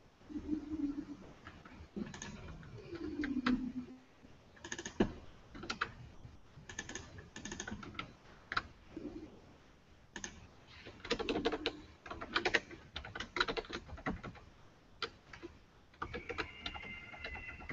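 Computer keyboard typing: irregular runs of keystrokes with short pauses between them, and a brief high tone near the end.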